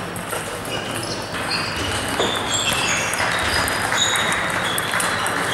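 Busy table tennis hall: ping-pong balls clicking off bats and tables from many games at once, with short high squeaks over a murmur of voices.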